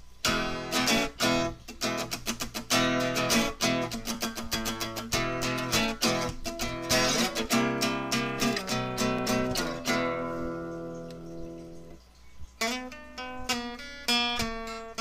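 Intro music on acoustic guitar, picked and strummed in quick runs, with a chord left ringing and fading about ten seconds in before the playing resumes.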